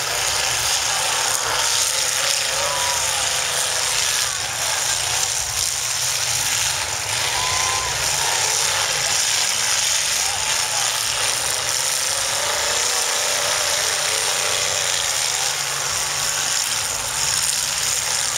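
Several demolition derby cars' engines running and revving up and down together, in a steady loud din of engine noise.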